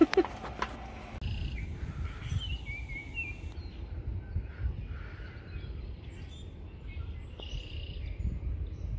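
Birds chirping a few times in short, gliding calls over a steady low rumble outdoors, with a sharp knock right at the start.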